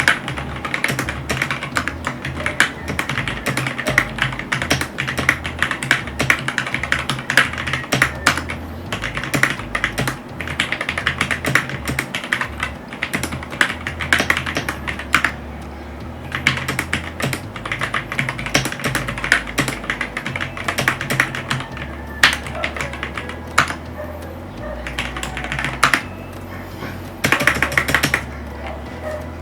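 Fast typing on a Fantech MaxCore MK852 mechanical keyboard fitted with lubed Gateron Milky Yellow linear switches: a dense, continuous run of key clacks with a few short pauses.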